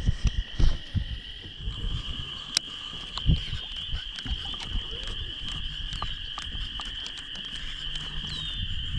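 Steady, high-pitched chorus of calling frogs, with scattered knocks and clicks over it.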